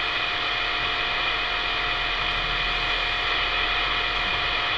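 CB radio receiver on channel 28 hissing with steady band static between transmissions, a faint steady whistle and a low hum running under the hiss.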